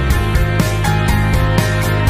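Background music with a steady beat of about four beats a second.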